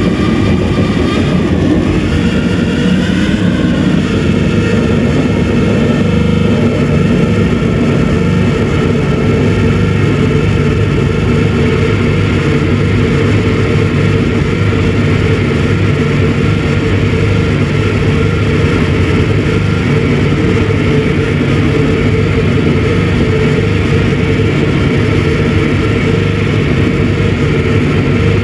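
Live harsh noise music: a loud, unbroken wall of distorted electronic noise from tabletop gear played through a PA, heaviest in the low end. A few wavering high tones ride over it for the first few seconds, then fade.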